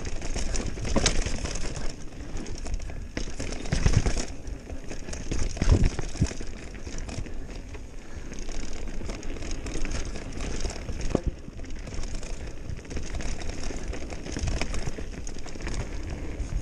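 Mountain bike riding fast down a dirt trail: tyres rolling and crunching over dirt and roots, the bike rattling, with sharp knocks over bumps, the loudest about 4 and 6 seconds in.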